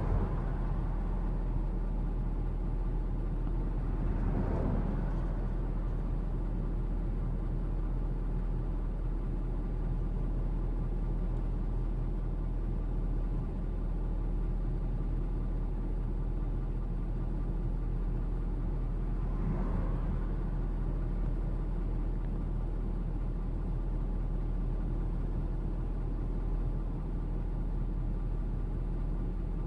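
Steady low rumble of a car idling, heard from inside the cabin. Two vehicles pass close by, one about four seconds in and another about twenty seconds in, each swelling and fading within a second or two.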